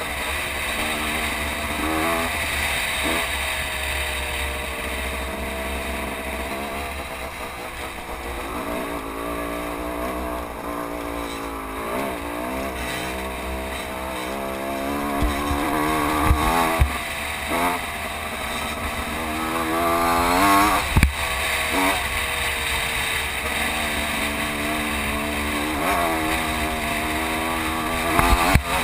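Small off-road engine running on a trail ride, its pitch rising and falling over and over as the throttle opens and closes and gears change. A few sharp knocks come through, mostly in the second half.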